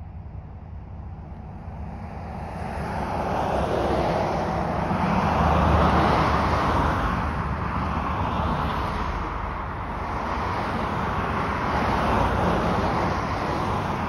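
Whelen WPS-4004 electronic outdoor warning siren sounding a test tone, building up about two seconds in, then swelling and fading slowly in loudness as its rotating speaker array turns.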